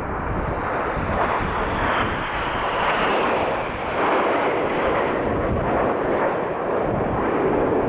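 Jet roar from a formation of BAE Hawk T1 trainers flying past: a steady, loud rushing noise with a short dip in level just before the middle.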